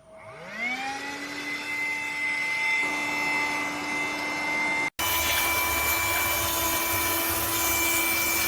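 ELUXGO ALT1019 cordless vacuum cleaner's motor spinning up with a rising whine and then running steadily with a high whine and rush of air. About five seconds in it breaks off for an instant and resumes at a slightly higher pitch and louder.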